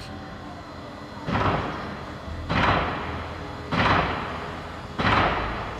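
Soundtrack music: a swelling percussive hit four times, about every second and a quarter, each fading away before the next, over a low steady drone.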